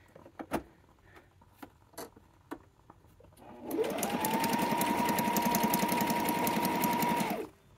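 Electric sewing machine stitching a zigzag through paper pages. After a few light clicks, the motor spins up about three and a half seconds in to a steady high whine with rapid, even needle strokes, runs for nearly four seconds, and stops.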